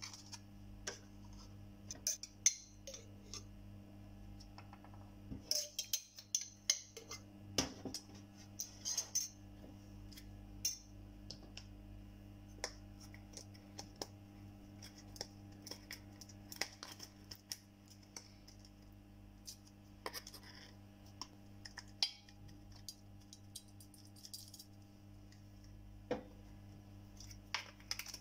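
Scattered light clicks and clinks of a spoon and spice containers against a stainless steel bowl as a marinade's ingredients are added, over a steady low hum.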